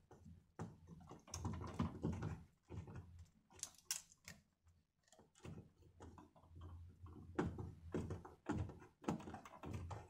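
Screwdriver tightening the brass terminal screws on a single-pole light switch: faint, irregular small clicks and scrapes of the tip turning in the screw heads, with the switch and its wires being handled.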